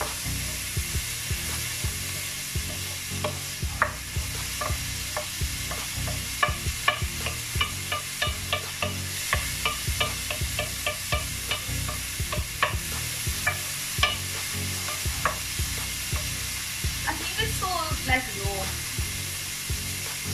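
Diced carrots and peas sizzling in a hot non-stick pan as a wooden spatula stirs them. A steady sizzle runs under rapid taps and scrapes of the spatula against the pan, busiest in the middle stretch.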